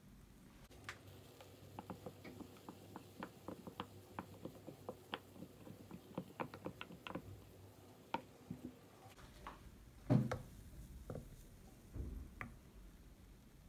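Wooden spoon stirring frothed milk in a glass cup, with many light, irregular clicks and taps of the spoon against the glass, then a few louder knocks near the end.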